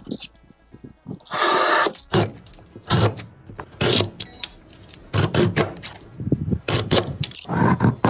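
A hand tool scraping across wood in repeated strokes: one long stroke about a second in, then a run of shorter, quicker strokes.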